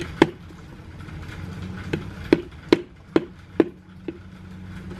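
A green plastic bug carrier being tipped and handled, giving about half a dozen sharp clicks, mostly between two and four seconds in, over a steady low mechanical hum.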